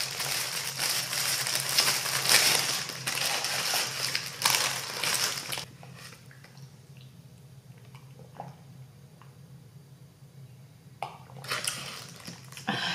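Paper burger wrapper crinkling and rustling loudly as a burger is unwrapped, stopping about six seconds in. After that, faint close-up chewing with small mouth clicks, a little louder near the end.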